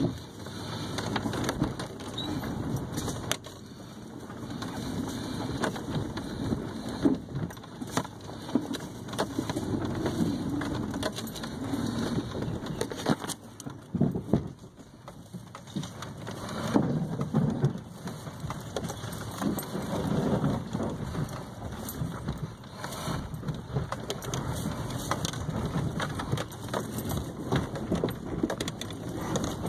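A vehicle creeping over a rough dirt track, heard from inside the cab: an uneven low rumble that swells and fades, with many knocks, crunches and rattles.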